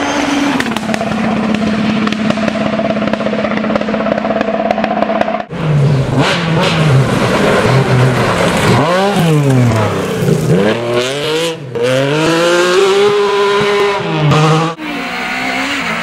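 Rally cars at full speed, one after another. First a Škoda Fabia rally car's engine is held at steady high revs. After a cut about five and a half seconds in, a Lancia Stratos's engine revs hard, rising and falling again and again through gear changes and lifts, and near the end a third rally car's engine is heard at steady revs.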